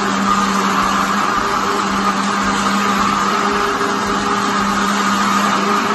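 Countertop electric blender running steadily with an even motor hum, blending apples and milk into a milkshake.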